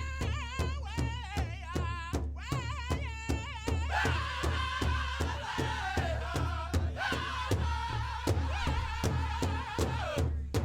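Live ensemble music: a high melody with strong vibrato over a steady drumbeat of about three beats a second.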